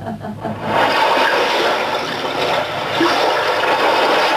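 A steady rush of water noise, like surf or breaking waves, swelling in about half a second in and holding evenly.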